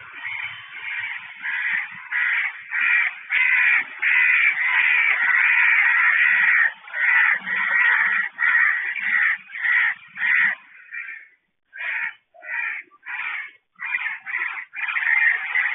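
Crows cawing harshly in a rapid series, the calls running almost together at first and then coming as separate short caws with brief gaps.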